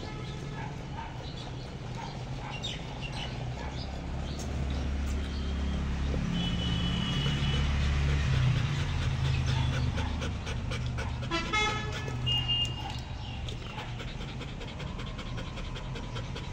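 Golden retriever lapping water from a stainless steel bowl, then panting, over a steady low rumble that swells to its loudest mid-way. A few short high chirps sound over it.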